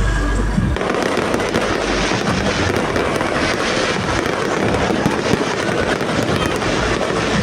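Fireworks display going off in a continuous barrage of rapid pops and crackle, with a deep boom in the first second.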